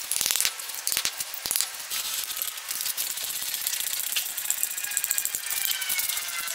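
A hammer knocks metal lag-bolt shields into holes drilled in a concrete floor: a few sharp strikes in the first second and a half. Then comes the rapid clicking of a ratchet wrench tightening the lag bolts that anchor a steel bender base, with a squeak near the end.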